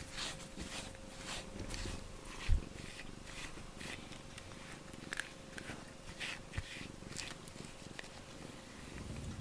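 Domestic cat purring while it rubs against a rubber grooming brush, with short scratchy brush strokes on fur, and a single low thump about two and a half seconds in.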